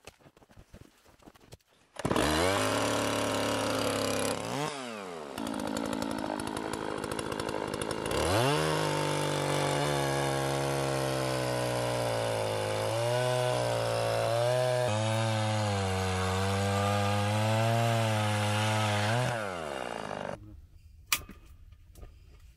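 Two-stroke chainsaw cutting through a log. It comes in suddenly at high revs and dips once. Its pitch then wavers up and down as the chain bites into the wood, and it falls away and stops near the end.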